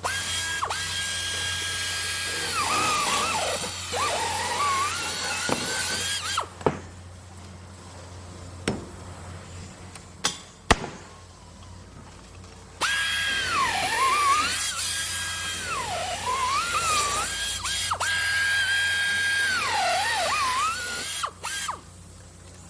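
Power drill running at construction work: a high motor whine that dips in pitch and recovers again and again as the bit loads up. It runs for about six seconds, stops for about six seconds with a few sharp knocks in between, then runs again for about eight seconds, ending in two short bursts.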